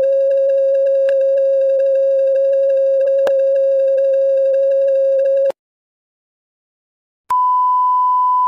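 A loud, steady electronic tone with a slight flutter, which cuts off suddenly about five and a half seconds in. After a couple of seconds of silence, a higher, pure beep tone starts and holds.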